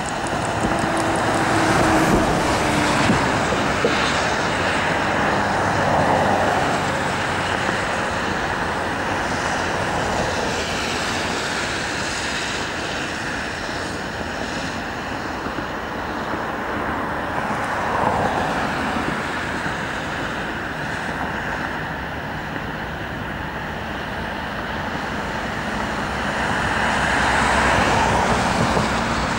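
Steady road traffic noise, with several vehicles passing by and swelling louder a few times.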